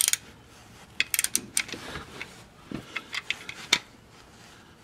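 Ratchet wrench clicking in a few short, irregular strokes, with light metal clinks, as a transmission drain plug is snugged into a re-threaded aluminum transmission case; the plug takes hold without spinning, so the repaired threads grip.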